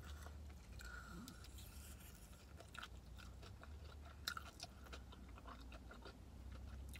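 Faint close-up chewing of a chicken wing: soft wet mouth clicks and small crunches, one sharper click a little past the middle, over a low steady rumble.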